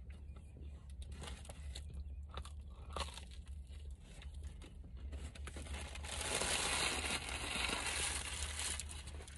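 Paper crinkling and rustling as it is handled: light scattered crackles at first, then a louder continuous rustle from about six seconds in.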